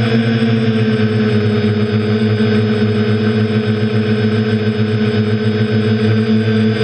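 Quadcopter's electric motors and propellers running steadily in flight, picked up by the camera mounted on the craft: a loud, even buzz of several tones over a hiss of noise. The pitch eases down slightly just after the start.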